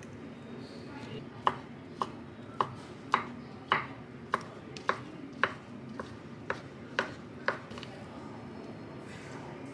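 Chef's knife slicing a rolled thin egg crepe into strips on a wooden cutting board: about a dozen even chops, roughly two a second, starting about a second and a half in and stopping near the end.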